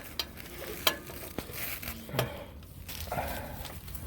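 A torque wrench tightening a new oil pan drain plug: a few scattered sharp metallic clicks and clinks.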